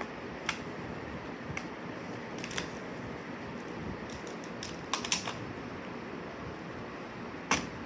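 Magnetic building blocks clicking and clacking as they are handled and snapped together: a handful of scattered sharp clicks, the loudest about five seconds in and near the end, over a steady room hiss.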